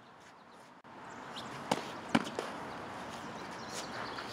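Training longswords clashing: two sharp knocks of blade on blade about half a second apart, the second the loudest, followed by a lighter tap.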